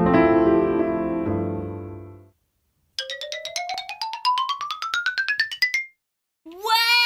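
Keyboard chord that fades out over about two seconds. Then a rapid run of notes climbing steadily in pitch for about three seconds, a glissando-style sound effect. Near the end a new bending tone starts.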